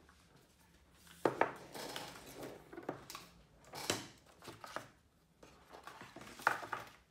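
Hands handling a long white cardboard box: the lid coming off, the box knocked down on a wooden desk, and fingers scraping and rustling inside it. Irregular scrapes with a few sharp knocks.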